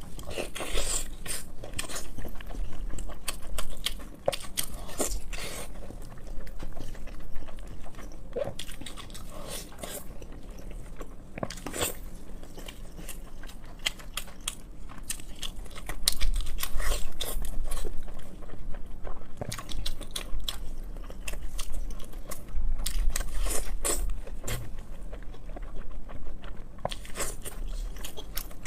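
A person eating close to the microphone: biting and chewing pork, with a steady run of short sharp clicks from the mouth and food.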